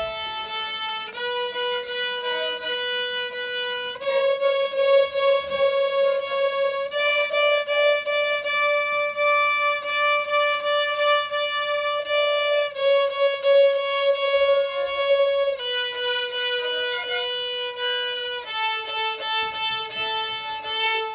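Two beginner violins playing in unison, bowing the "see a little panda" rhythm over and over on each note. The pitch steps up from A to D and back down to A, about three seconds per note, and the playing stops suddenly at the end.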